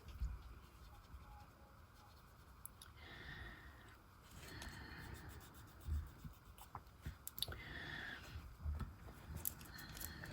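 Faint scratching and rubbing from working on nails, in two short stretches, with a few light clicks and soft taps from handling tools or nails.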